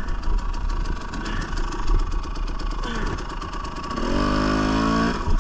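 Husqvarna TE 300 two-stroke dirt bike engine working through a technical rocky section, the throttle blipped on and off, then held at a steady higher rev for about a second near the end.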